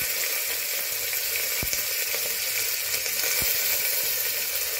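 Chopped garlic and ginger sizzling steadily in hot mustard oil with cumin seeds, frying toward light golden brown in an open aluminium pressure cooker. Two faint clicks come about a second and a half in and again past three seconds.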